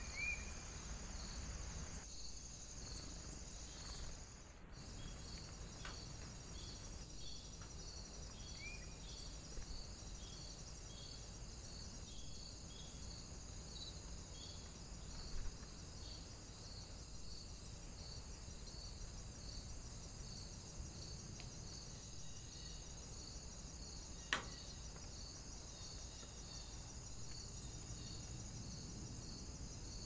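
Insects stridulating: a continuous high trill with a regularly repeated chirp about twice a second. A few short bird chirps near the start and about nine seconds in, and one sharp click about 24 seconds in.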